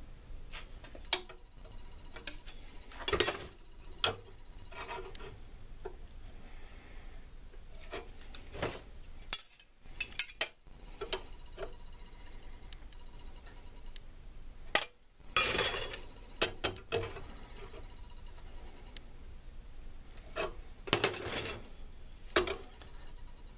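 Steel draw knife blade being worked straight a little at a time: irregular metal clinks and knocks, with a few short stretches of scraping and rubbing.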